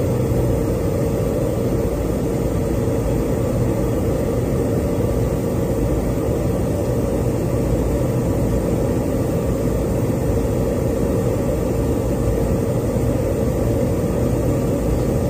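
Steady in-flight aircraft noise heard aboard a refuelling tanker: a constant rush of engines and airflow with a steady hum running through it.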